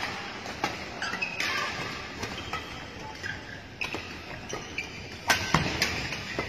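Badminton rackets hitting shuttlecocks in rallies on several courts, sharp hits scattered throughout with the loudest pair about five seconds in, mixed with short shoe squeaks on the court mats, echoing in a large hall.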